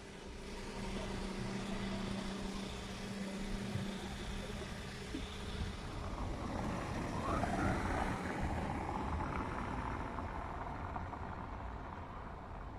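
A motor vehicle running in the street: a steady low engine hum over road noise, swelling to its loudest a little past halfway and then easing off.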